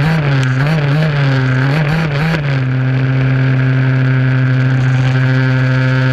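HPI Baja SS RC buggy's two-stroke petrol engine running close to the on-board camera, its pitch wavering up and down a few times with the throttle before holding steady at an even pitch from about halfway in.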